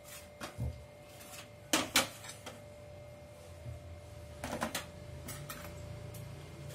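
Steel and ceramic kitchen bowls knocking and clinking as they are moved and set down on a steel tray and the stove top: scattered sharp knocks, the loudest two close together about two seconds in and another cluster a little past the middle, over a faint steady hum.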